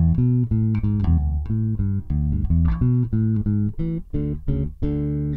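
Electric bass guitar played through an Electro-Harmonix Battalion bass preamp pedal and recorded direct: a fast run of plucked notes ending on a longer held note. The pedal is engaged with its EQ set to a slight bass boost and a cut in the mids and treble.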